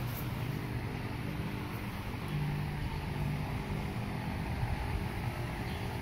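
Steady low rumble of outdoor background noise, with a brief low hum for about a second in the middle.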